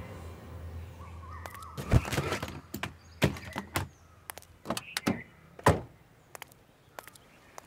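A car boot being handled and loaded: a series of sharp thunks and knocks, the loudest about two seconds in and again near six seconds, as the boot lid and the load are set down.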